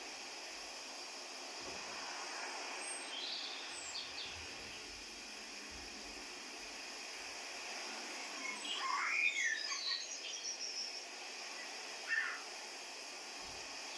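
Songbirds chirping over a steady outdoor hiss: a few faint chirps early, a loud cluster of rapid chirps a little past halfway, and one short call near the end.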